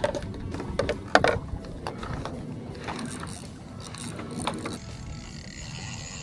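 Spinning fishing reel being handled and wound, its gears and pawl clicking, with irregular knocks of tackle against the bamboo fishing platform.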